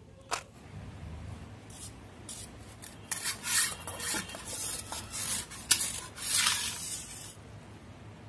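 Peeled raw potato grated on a small metal hand grater: a run of rasping strokes that starts a couple of seconds in and stops shortly before the end.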